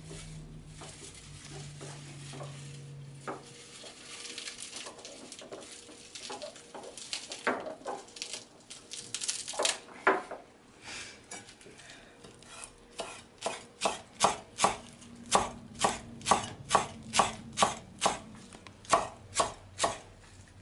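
Chef's knife chopping fresh parsley on a wooden cutting board, in steady strokes about two a second through the second half. Before that come softer rustles and scattered clicks as the parsley leaves are picked off their stems.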